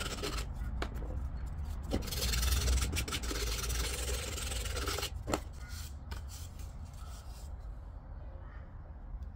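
Hand sanding bare wood with sandpaper wrapped on a paint-stirrer sanding stick: quick rasping strokes rubbing along the slats of a small wooden lattice panel. About five seconds in there is a light knock and the sanding stops.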